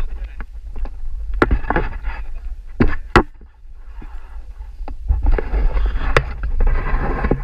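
Wind buffeting an action camera's microphone as a steady low rumble, with sharp knocks and rustling from the camera and its pole being handled, several times over.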